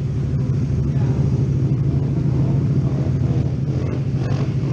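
Motorcycle engines idling close by, a steady low running with no revving.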